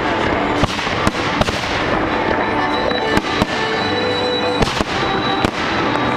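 Fireworks going off: a string of sharp bangs, roughly one or two a second, over a continuous rumbling and crackling background.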